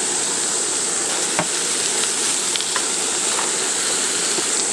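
Onions, minced meat and freshly added sliced eggplant frying with a steady sizzle in a cast-iron Dutch oven, stirred with a wooden spatula, with a few light clicks of the spatula and vegetables against the pot.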